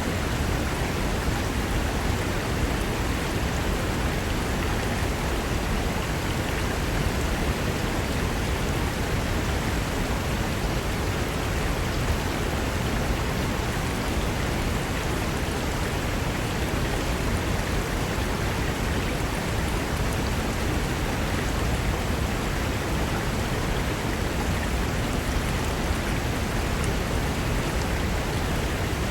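Mountain river running over rocks: a steady, even rush of water that does not change.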